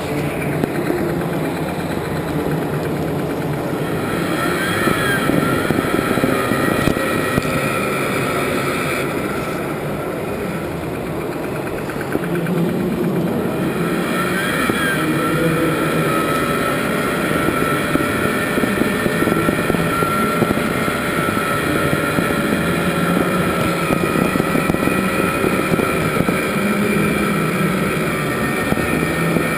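Radio-controlled Liebherr LTM 1090 scale model crane running with a steady engine-like drone as it holds and hoists a model tug.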